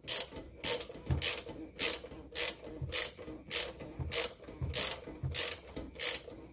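Ratchet wrench with a 27 mm socket on a long extension clicking at an even pace, about two clicks a second, as it tightens a plastic oil filter housing cap.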